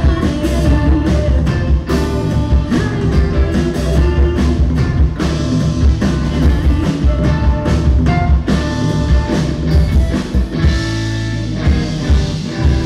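Live rock band playing: drum kit, electric guitar and bass. Near the end the drum hits fall away for about a second under a held low chord, then the full beat comes back.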